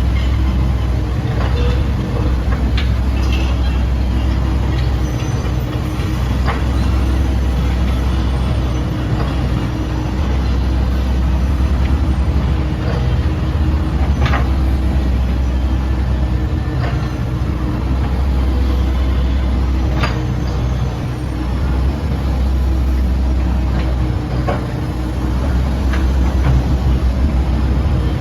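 Komatsu PC78UU-8 compact excavator's diesel engine running with a steady low drone, with scattered sharp knocks every few seconds.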